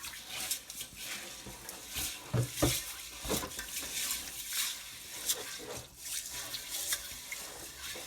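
Water sloshing and splashing irregularly in a pot as rice is rinsed by hand.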